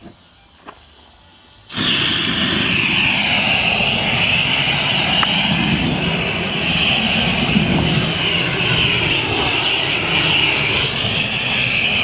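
Two faint clicks, then about two seconds in a flame torch lights and burns at full flame with a loud, steady, jet-like rush.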